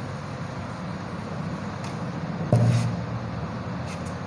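A steady, noisy background hum of the kind traffic makes, with a brief, louder low sound about two and a half seconds in.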